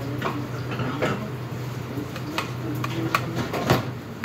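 Metal utensil stirring and knocking in a steel saucepan, with pots clanking on the stainless counter: a series of sharp clanks, the loudest about three and a half seconds in. A steady hum of kitchen ventilation runs underneath.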